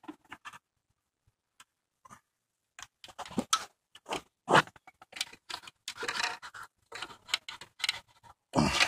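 Hands and a plier-type tool working plastic electrical connectors loose: irregular clicks, rubs and scrapes. The first couple of seconds are nearly quiet, there is a sharper click about four and a half seconds in, and a louder scraping rush comes near the end.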